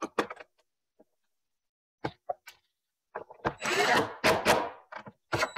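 Cordless driver running, driving a screw to fasten a metal bracket: a loud run of about a second and a half starting about three and a half seconds in, then a short burst near the end.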